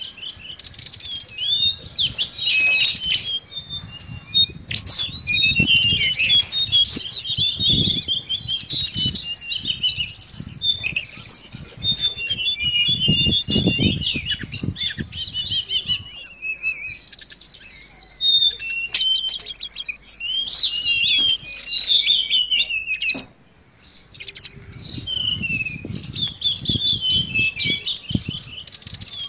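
Mangrove blue flycatcher (tledekan laut) singing a long run of quick, high twittering phrases that break off briefly near the end, used as a lure song for trapping and training. Low fluttering sounds come and go underneath.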